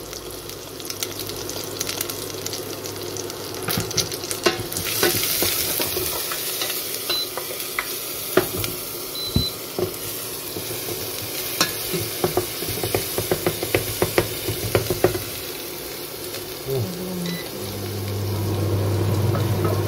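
Chopped onion frying in olive oil in a stainless steel pot, a steady sizzle that turns louder and brighter about five seconds in, with a wooden spatula clicking and scraping against the pot as it is stirred. A low steady hum comes in near the end.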